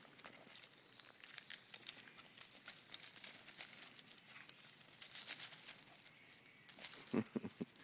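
Dry fallen leaves crunching and rustling under the paws of small terriers as they scamper and tussle, in quick, irregular crackles. A short run of low thumps comes about seven seconds in.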